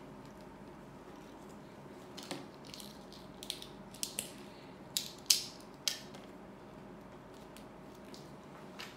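Small plastic doll pieces clicking and snapping as they are handled and pressed onto a toy doll: a handful of sharp clicks from about two to six seconds in, the loudest a little past five seconds, over a faint steady hum.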